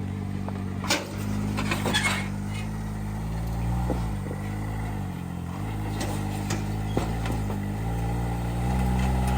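Motor vehicle engine running steadily, its pitch dipping and climbing back several times.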